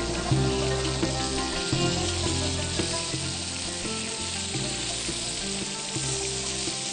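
Flour-dusted beef cubes searing in a hot frying pan, sizzling and sputtering steadily as the pieces are turned with a fork and spoon. The steady sizzle is the sign the meat is browning, not stewing in released water. Background music with low sustained notes fades under it.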